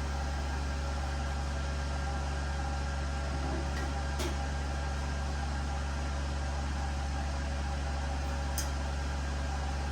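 A steady low hum with an even background hiss, unchanging throughout, with two faint clicks, one about four seconds in and one about eight and a half seconds in.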